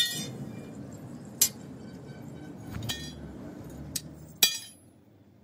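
A sledgehammer striking a steel truck leaf-spring leaf held on an anvil, reshaping the leaf: five ringing metal-on-metal blows, mostly about a second and a half apart, the last two close together.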